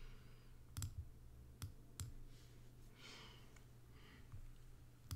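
About four faint, sharp clicks from working a computer's mouse and keyboard, spread over a few seconds, over a low steady room hum.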